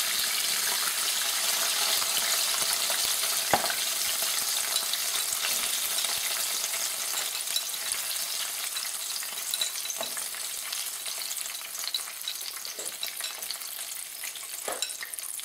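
Spring rolls deep-frying in a wok of oil at medium heat: a steady sizzle and crackle that eases off toward the end as the rolls are lifted out. A few sharp clicks come from the wooden chopsticks turning and lifting them.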